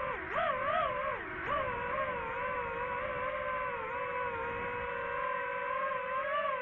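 DJI FPV drone's motors and propellers whining steadily. The pitch dips and swings back up a few times in the first second and a half as the throttle changes, then holds level.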